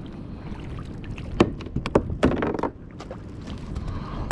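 Sharp knocks and a short scuffle against a kayak, two loud knocks about a second and a half and two seconds in, as bait and tackle are handled aboard.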